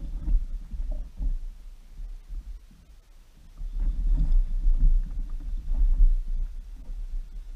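Low, uneven rumbling and soft thuds picked up through a kayak-mounted camera at sea, heavier in the second half.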